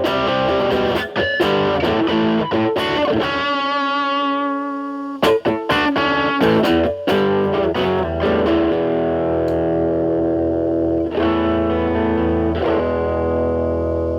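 Telecaster through a Fender Pugilist distortion pedal in series mode with Gain A at maximum, into a Marshall Valvestate amp's clean channel: heavily distorted picked notes and chords, then several chords struck and left to ring out.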